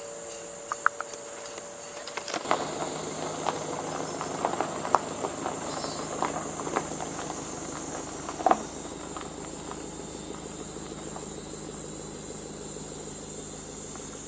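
Steady high-pitched chorus of summer insects, with scattered light clicks and knocks; about two seconds in a low steady hum joins suddenly.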